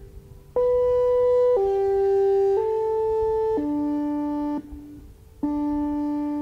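ATI HPSS-32R electronic siren's speaker array playing its test chimes: steady electronic tones, one note a second, in four-note phrases. A short pause separates the phrases near the start and about five seconds in.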